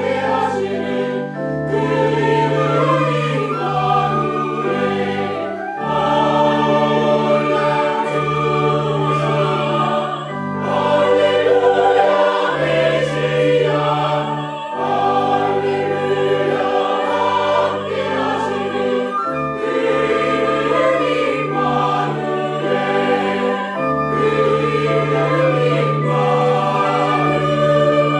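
Church choir singing an anthem in full voice, several parts together, over instrumental accompaniment that holds low sustained bass notes changing every second or two.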